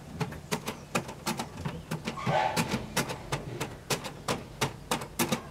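A nail punching small holes through a newspaper sheet spread over a wooden beehive box: a quick, irregular run of sharp paper-piercing taps, about two to four a second.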